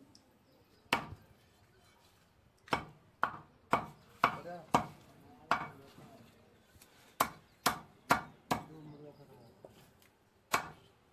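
Raw chicken being chopped into pieces: about a dozen sharp chops at an uneven pace, some coming in quick runs of two or three.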